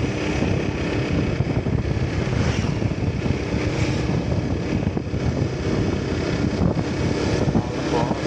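Steady low rumble of vehicle engine and road noise while driving, with no horn sounding.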